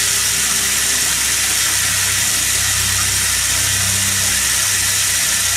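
A steady hiss over a low, even hum that runs without change.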